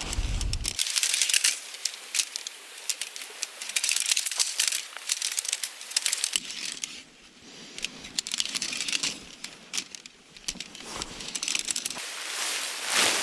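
Crinkling, rustling handling noise with many scattered clicks, in segments that change abruptly about six and twelve seconds in.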